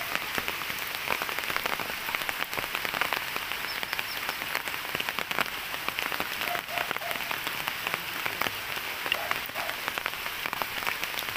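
Light rain falling steadily, with many separate drops tapping close by.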